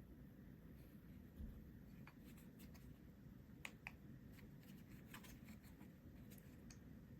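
Near silence with a few faint, sharp clicks scattered through it, around six in all, two of them close together about halfway through.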